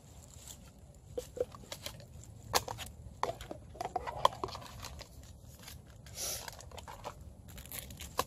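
Hands handling a paper packet and small gear: irregular small clicks and crinkling rustles, with a short burst of rustling about six seconds in.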